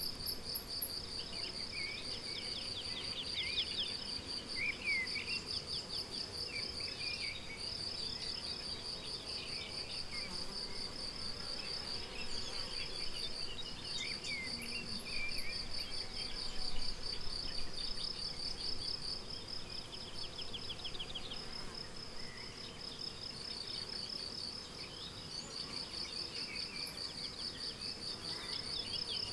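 Crickets chirping in a fast, even pulse, with a few short breaks. Now and then a small bird calls with short, quick chirps.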